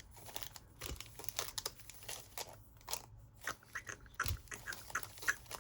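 Baseball card pack wrapper being crinkled and handled: a run of irregular crackles and crunches.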